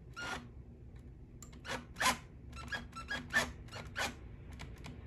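Cordless hand drill's bit rasping into a bowling ball's shell in a string of short, irregular bursts, each a brief zipper-like cut with quiet gaps between.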